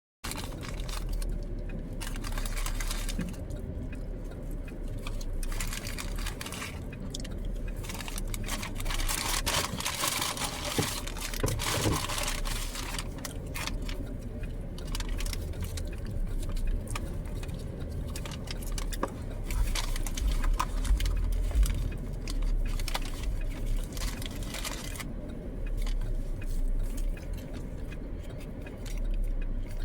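Close handling noises, irregular rustling and crinkling with small clicks, busiest in two stretches around the middle, over a steady low hum.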